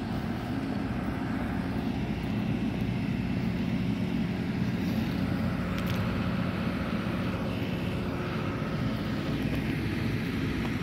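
A steady, low engine drone that holds the same pitch throughout.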